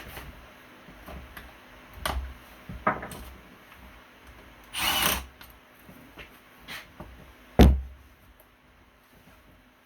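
Scattered clicks and knocks of hands working with tools and parts, with a short rasping noise about five seconds in and a sharp, heavier knock later on.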